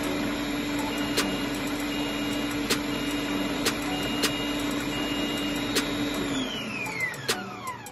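ThermoCook Pro M 2.0 thermo-cooker motor blending a curry sauce at full speed (speed 8): a steady whir with a few sharp ticks and a faint intermittent beep as the timer nears zero. About six seconds in the motor cuts out and spins down in a falling whine.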